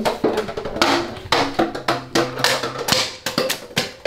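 Knocks and clatter of plastic water bottles and cups being moved off a car seat, over background music.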